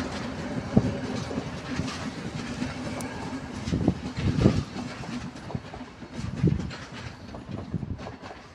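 A double-deck CityElefant electric multiple unit running over a level crossing, its wheels clattering over the rails with a steady hum, fading as the last car clears the crossing a few seconds in. A few low thumps come about four seconds in.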